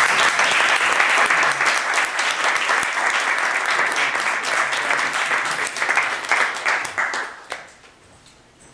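Audience applauding, a dense patter of many hands that dies away about seven and a half seconds in.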